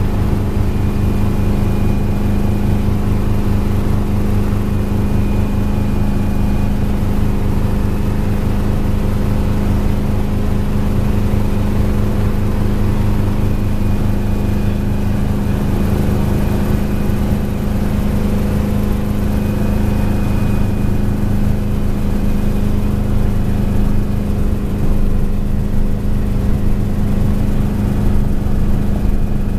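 Small helicopter's engine and rotor running steadily, heard from inside the cabin as a loud, even drone with a fast beat from the rotor. The helicopter is hover-taxiing low along the runway, and the sound gets a little rougher near the end as it picks up speed.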